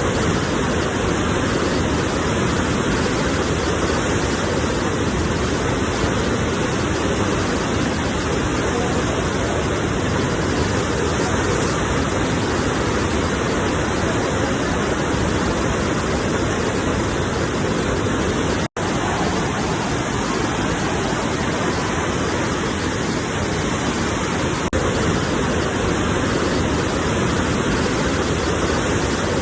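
Sea waves rushing as one steady, even roar, with no separate breakers standing out. The sound cuts out for an instant about 19 seconds in.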